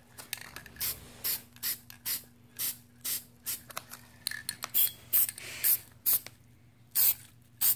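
Aerosol spray can of matte clear coat sprayed in a rapid series of short hissing squirts, about two to three a second, with a brief pause near the end.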